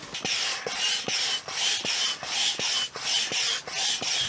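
Hand pump inflating an inflatable tent through a hose, worked in quick strokes: a rhythmic hiss of air about two to three times a second, each stroke with a short squeak and a light click.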